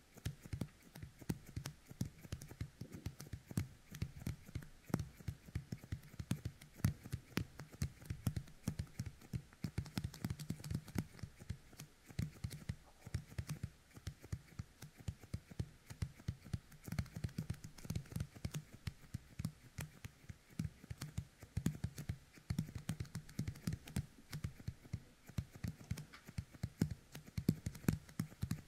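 Youkai Kemuri toy: fingertips coated with its sticky resin are pressed together and pulled apart right at the ear of a binaural dummy-head microphone. The result is a dense, irregular run of small tacky clicks and pops, several a second, with soft low thumps under them.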